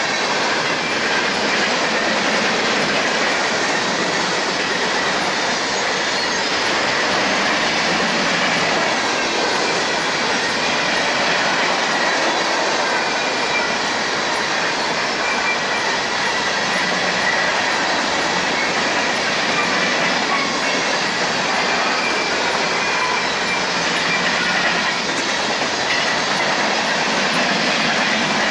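Freight train of covered hopper cars rolling past: a steady rumble and clatter of steel wheels on rail, with a faint high wheel squeal coming and going.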